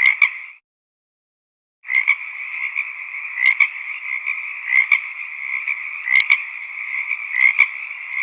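A chorus of frogs croaking: a dense, steady trill with louder single calls standing out about once a second. It drops to complete silence for about a second near the start, then resumes, and there is one sharp click about six seconds in.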